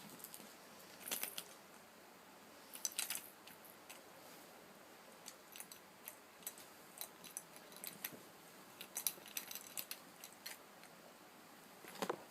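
A baby making wet clicking and smacking noises with her lips and saliva, in short irregular bursts: a couple of clusters early, scattered small clicks through the middle, and a stronger burst near the end.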